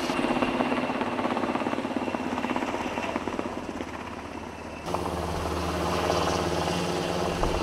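MH-60S helicopter's fast rotor chop over turbine noise. About five seconds in, the sound cuts abruptly to a steadier low engine hum.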